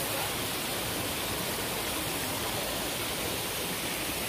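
Steady, even rush of flowing water, with no breaks or distinct events.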